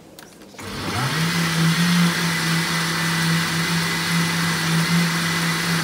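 Countertop blender switched on about half a second in: the motor spins up quickly, then runs steadily at full speed, churning thick black-eyed bean batter.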